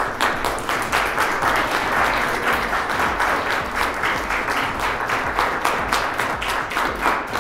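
Audience of students and teachers applauding: many hands clapping steadily.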